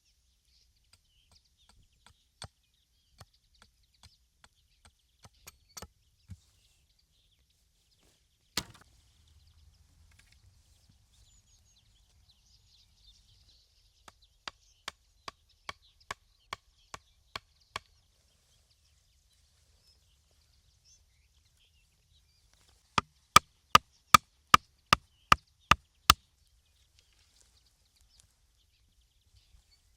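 Wood being chopped with sharp, separate strikes. A few faint hits come first, then one loud blow about a third of the way in and an even run of about eight strikes, two a second, around the middle. Near the end comes a louder, faster run of about nine strikes that ring.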